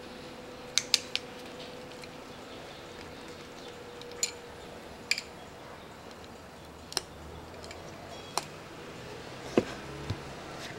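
Hand tools clicking and clinking against the small metal water choke housing of a Zenith-Stromberg carburettor as a nut on its back is fitted and snugged: about nine sharp metallic ticks spread irregularly over ten seconds.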